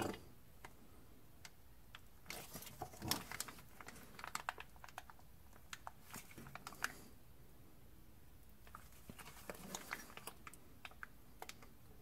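Faint crinkling and crackling of a soft plastic gear-oil pouch squeezed by hand in irregular bursts, pushing fluid into a transfer case fill hole.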